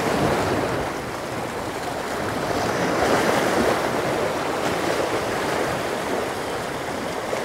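Surf washing against a rock jetty, swelling and easing, with wind on the microphone.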